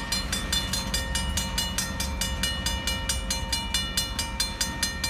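Railroad crossing bell ringing in rapid, evenly spaced dings, over the low rumble of a freight train's tank car rolling through the crossing.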